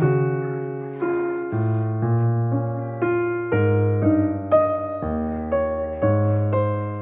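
Background music: piano playing chords, each struck and fading, a new one about every half second.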